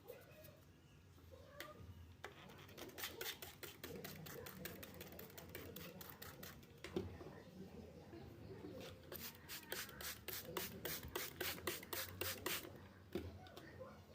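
Faint handling sounds with two runs of quick, sharp taps, about five a second: a short run a few seconds in and a longer one from about nine to twelve and a half seconds.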